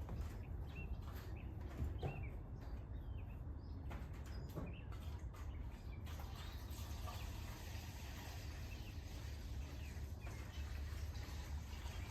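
Small birds chirping in short repeated calls over a steady low rumble, with a few soft knocks in the first half and a faint hiss joining about halfway through.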